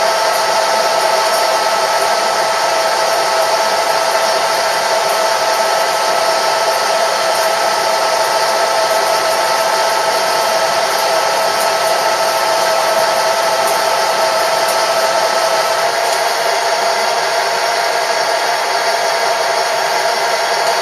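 A machine tool running steadily with a continuous whir, along with a faint high tone that drops out about three quarters of the way through.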